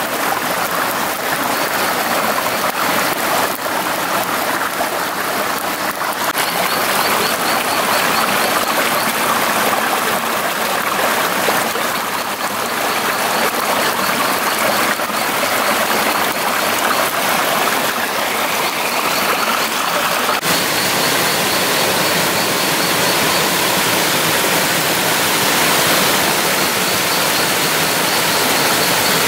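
Steady rush of flowing water, like a stream, with a few faint clicks in the first seconds and a faint, rapidly repeated high chirping that comes and goes.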